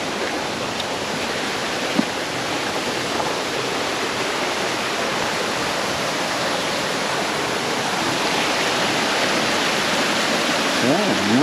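Waterfall water rushing as a steady, even noise, with a single short knock about two seconds in.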